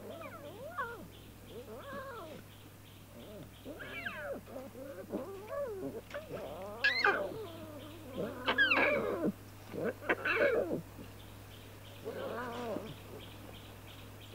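Lion cubs calling: a series of about a dozen short, cat-like cries that rise and fall in pitch, coming closer together and louder in the middle of the stretch.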